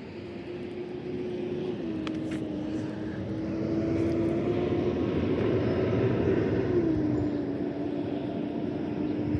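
A small propeller airplane passing over, its engine drone swelling louder through the middle and dropping in pitch about two-thirds of the way through as it goes by.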